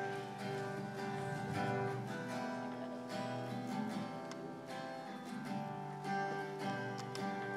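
Solo acoustic guitar strumming chords in a steady rhythm, the instrumental opening of a song before the vocals come in.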